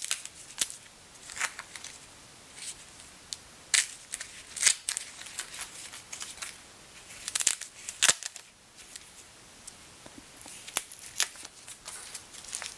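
Brown paper and tape being peeled by hand off a molding-plane blade: scattered light crackles and sharp clicks at irregular intervals.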